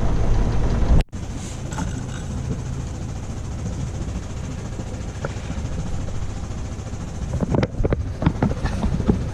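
A small yacht's engine runs steadily while the boat motors along in calm water, a low, even hum. There is an abrupt cut about a second in, after which the hum goes on more quietly, with a few short knocks near the end.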